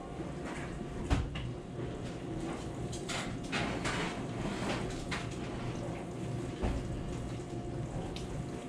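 Oven door opened and a metal baking sheet pulled off the oven rack: a sharp knock about a second in, then scraping and clicks of metal on metal.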